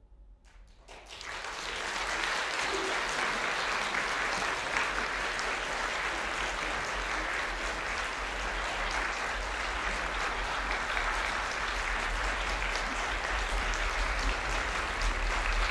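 Audience applauding in a concert hall. A few scattered claps start about half a second in and swell within a second into full, steady applause.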